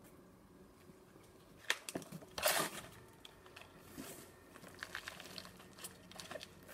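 Potting moss rustling and crackling as it is handled around an orchid division's roots in a small plastic pot, with a few sharp taps and one louder crunch about two and a half seconds in.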